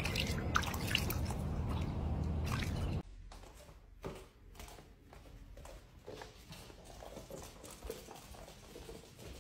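Light drips and small splashes of a cat pawing at a shallow puddle, over steady outdoor background noise. About three seconds in, the sound cuts to a much quieter room with only a few faint taps.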